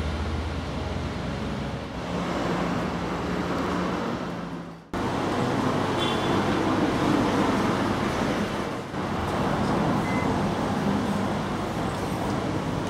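Road traffic: vehicle engines and tyres on the street as a steady noise, with a low engine hum in the first few seconds. About five seconds in, the sound fades briefly and cuts abruptly to another stretch of the same traffic noise.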